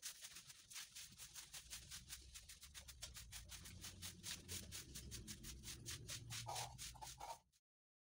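Felt-tip marker scratching on paper in quick back-and-forth colouring strokes, several strokes a second, faint. A few brief higher sounds come in near the end, and everything stops suddenly.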